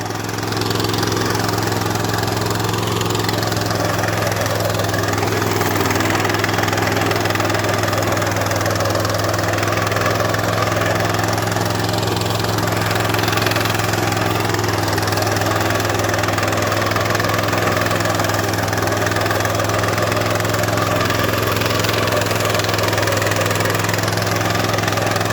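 Salyut-100 walk-behind tractor's single-cylinder petrol engine running steadily under load, driving a rotary disc mower through grass on a steep slope.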